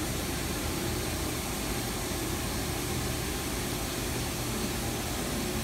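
Spindle of a 1997 Haas HL2 CNC lathe running with its chuck spinning, making a steady, even machine noise.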